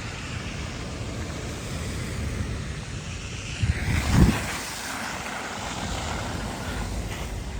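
Wind buffeting the microphone in a snowstorm: a steady rumbling hiss, with one stronger gust about four seconds in.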